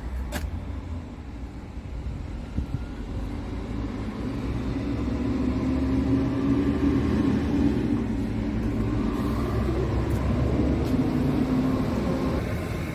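Scania R tractor unit's diesel engine idling, a steady low rumble that grows louder a few seconds in and eases near the end.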